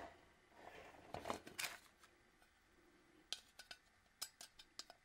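An empty ribbed steel tin can being picked up and handled, with soft metallic knocks and scrapes about a second in, then a few short sharp clicks near the end.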